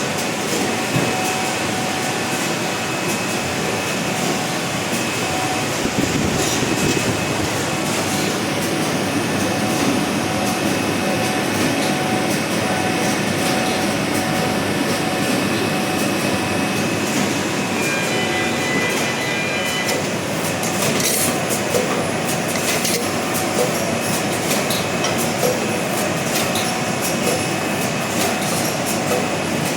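Automatic multicolour UV screen printing machine running: a steady mechanical clatter and hum with a few faint steady tones and scattered clicks.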